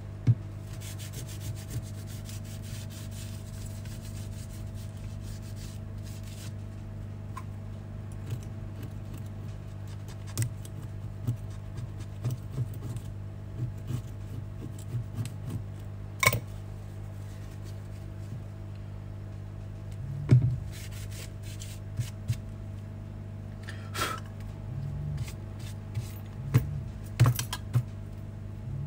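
Tissue and a pointed scraper rubbing and scraping over the bare back of an iPhone X housing as it is cleaned before the new back glass is fitted, with scattered light taps and a few sharper clicks, over a steady low hum.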